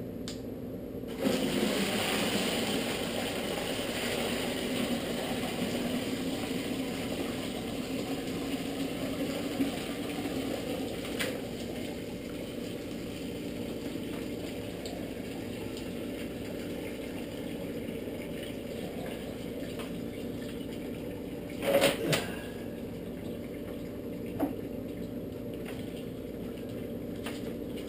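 Hot cooked grain mash poured from a stainless steel stockpot through a strainer into a plastic bucket: a steady pouring and splashing of liquid that starts about a second in and slowly tapers off. Near the end comes a loud double metal clunk as the pot is set down.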